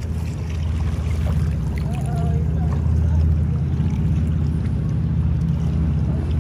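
Steady low rumble of wind and river water on the microphone of a gliding kayak, growing a little louder after about a second.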